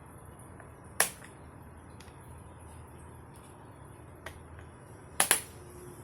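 Sharp clicks from a children's sound book's push buttons being pressed: one about a second in, a faint one after four seconds and a quick double click near the end.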